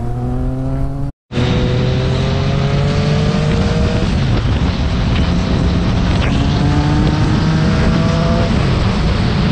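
Motorcycle engine heard from on board while riding, its pitch climbing and then dropping back several times as it accelerates and shifts up through the gears, over constant wind rush. The sound cuts out completely for a moment about a second in.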